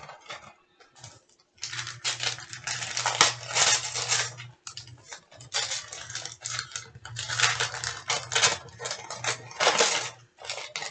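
Wrapping crinkling and rustling as a gift-wrapped sticker pack is unwrapped and handled, in irregular stretches of crackle.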